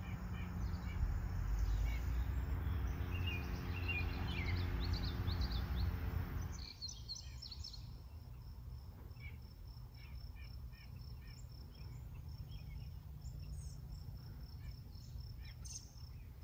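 Wild birds chirping and singing outdoors over a low rumble that stops abruptly about six and a half seconds in. After that, scattered chirps go on, along with a thin, evenly repeated high note at about four pulses a second.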